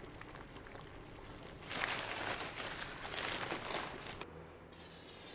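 Paper grocery bag rustling and crinkling as it is handled and opened. The rustling starts about two seconds in and lasts a couple of seconds, with a shorter, sharper rustle near the end.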